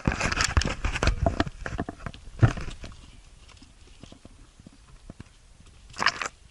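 Footsteps crunching and knocking on the rocky, gravelly trail while walking, thickest over the first two seconds with a heavier knock about halfway, then scattered steps and a short scuffle near the end.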